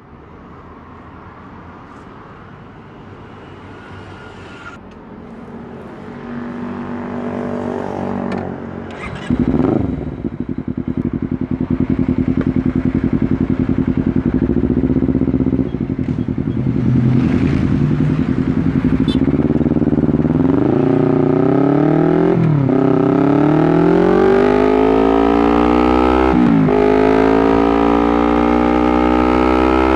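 Honda CBR250RR motorcycle engine, first quiet and growing louder, then jumping up about nine seconds in. It runs at steady revs for a while, then from about twenty seconds accelerates hard, the revs climbing and dropping sharply at two upshifts.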